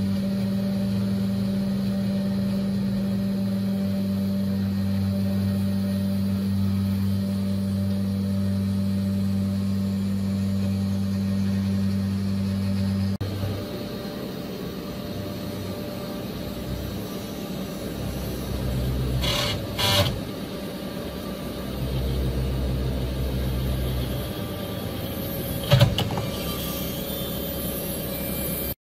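A 500 W spindle on a CNC 3018 milling aluminum with a 3/16-inch two-flute flat end mill, cutting a shallow 2D contour: a steady machine hum with a constant tone under the cutting noise. Partway through, the sound changes to a quieter, more uneven cut, with two brief sharp louder bursts, one about two-thirds of the way in and one near the end.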